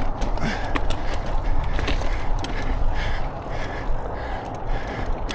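Mountain bike rolling down a rocky trail: a steady rumble of wind and tyre noise, with frequent sharp clicks and knocks as the wheels hit rocks.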